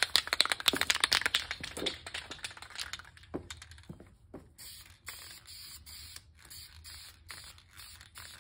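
Aerosol can of Dupli-Color engine paint: a rapid, loud rattling for about three seconds, typical of the can being shaken with its mixing ball, then a string of short hissing bursts of spray as paint goes onto the engine block.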